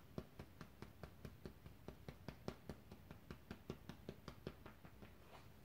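Fingertips tapping the side of the ribcage just below the armpit, the EFT under-arm point: faint, quick, even taps at about six a second that fade out near the end.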